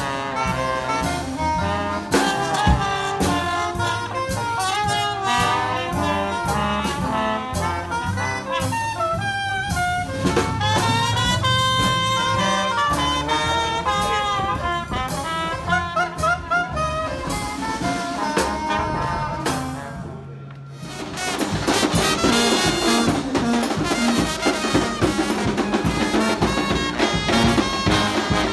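Traditional New Orleans-style jazz played on trumpet and trombone. It dips briefly about twenty seconds in, then a busier passage of the same kind of brass jazz follows.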